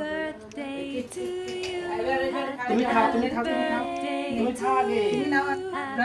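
A few voices singing together unaccompanied, mostly long held notes.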